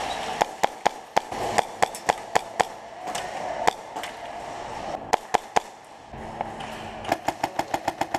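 Airsoft gunfire: sharp single shots at irregular intervals, then a quick run of about seven shots a second near the end.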